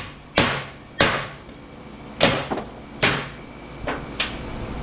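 Hammer blows on a steel ballast transformer, six sharp metallic strikes about a second apart, as its laminated core is knocked apart for the copper.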